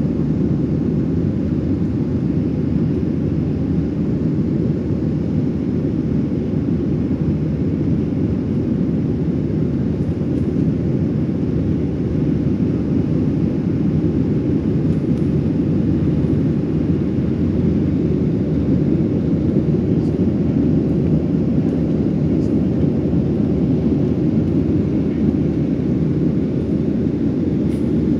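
Cabin noise inside a Boeing 737-700 during climb-out: a steady, deep rumble of its CFM56 jet engines and the airflow over the fuselage.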